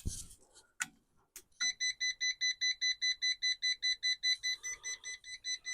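A couple of faint clicks, then from about a second and a half in a portable jump starter (jump box) beeping rapidly and steadily, about five or six high beeps a second.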